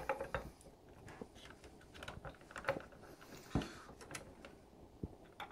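Scattered light clicks and taps of a hand screwdriver and small screws working against a metal mount bracket as the screws are driven in, with one duller knock about three and a half seconds in.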